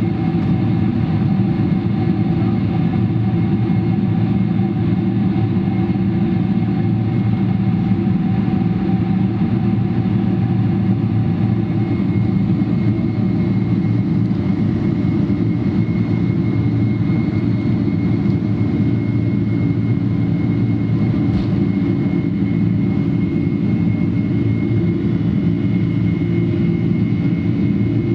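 Boeing 747-400's four turbofan engines at takeoff thrust, heard from inside the passenger cabin during the takeoff roll: a steady loud, deep rumble with a faint high whine on top.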